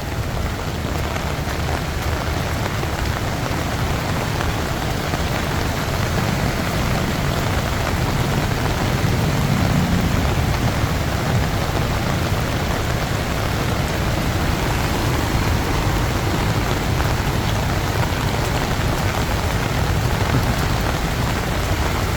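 Monsoon rain falling steadily, a dense even hiss of rain on the street with no break.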